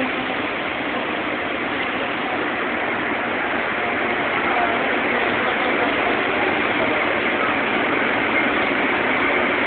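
FS E656 electric locomotive running slowly up to its coaches to couple, a steady hiss from its cooling blowers and running gear with no distinct knocks.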